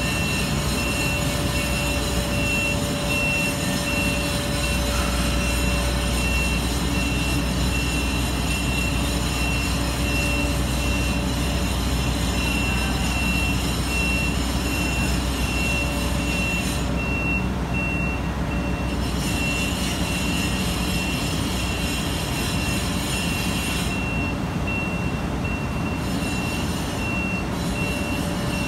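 Demag AC 350 mobile crane's diesel engine running under load while it hoists, its low rumble growing louder about four seconds in. Over it, a high warning beep repeats steadily.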